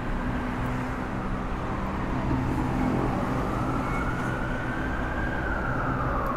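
Steady road traffic from a busy road below, with a siren wailing slowly: its pitch climbs from about a second in, peaks around five seconds, and falls near the end.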